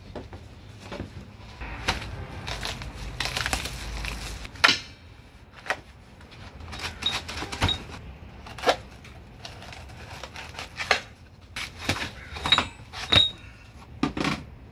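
Steel parts and hardware of a 6-ton hydraulic shop press being handled and set down in its cardboard box: scattered knocks and clinks with a few short metallic pings, and cardboard rustling for a couple of seconds near the start.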